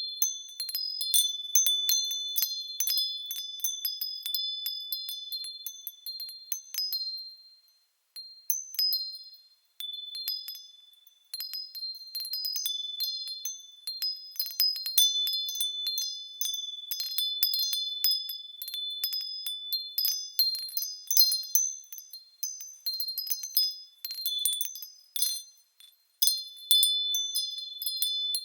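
Wind chimes ringing in irregular clusters of high, overlapping notes. The ringing dies away a few times in short lulls before the chimes are struck again.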